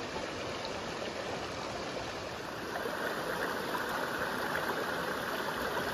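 Shallow creek water running over stones: a steady rushing that gets a little louder and brighter about halfway through.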